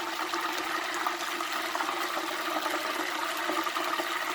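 Frozen hamburger patty deep-frying in hot oil: steady sizzling and bubbling with scattered small pops, the oil spattering from the juices in the meat. A steady low hum runs underneath.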